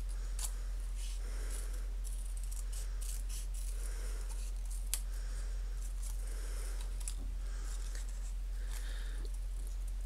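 Small scissors snipping paper: soft, short cuts about once a second, with a few sharper clicks of the blades, over a steady low hum.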